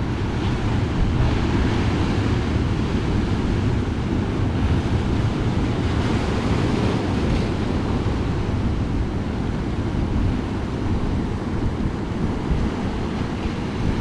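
Ocean surf breaking and washing over coastal rocks, a continuous rush that swells as waves come in, with wind rumbling on the microphone.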